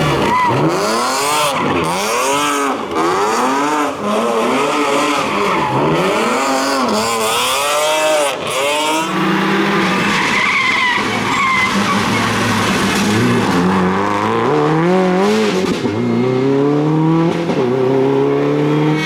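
Rally car engine at full throttle on a special stage, its revs rising and falling about once a second as it is worked through a run of corners. About nine seconds in the note steadies, then climbs steadily in pitch near the end as the car accelerates.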